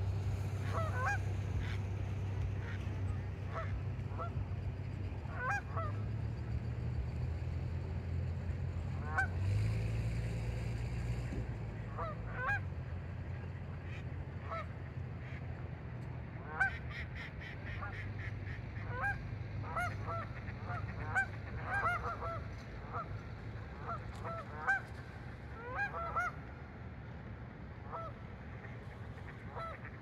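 Canada geese honking: many short calls that rise in pitch, scattered throughout and coming thicker in the second half, over a steady low hum.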